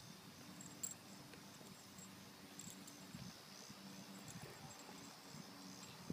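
Faint, steady chirping of insects in the grass, with one light click about a second in.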